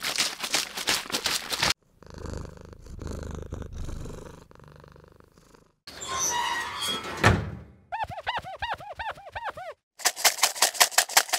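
A string of edited-in comic sound effects. It opens with a quick run of clicks and a low purring rumble, then a short noisy burst. A run of about eight quick squeaky rising-and-falling chirps follows, and it ends with another fast burst of clicks.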